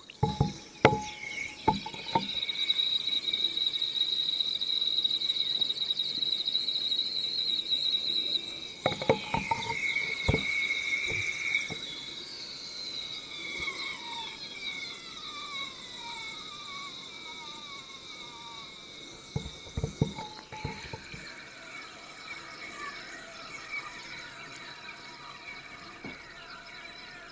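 Dry lumps of edible clay-chalk soaking in water, with air escaping from their pores in a steady high whistle and squeaks. From about twelve seconds in there are several falling squeals. A few clicks and knocks come near the start, about nine seconds in and about twenty seconds in.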